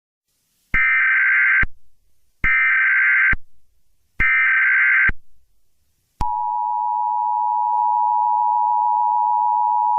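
Emergency Alert System SAME header: three bursts of buzzy data tones, each about a second long, announcing an alert. About six seconds in, the steady two-tone EAS attention signal starts and holds.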